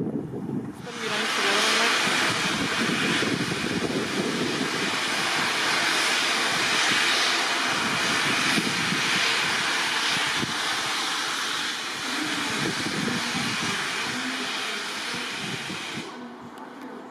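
LMS Ivatt Class 2 2-6-0 steam locomotive 46512 releasing steam in a loud, steady hiss. The hiss starts sharply about a second in and cuts off sharply near the end.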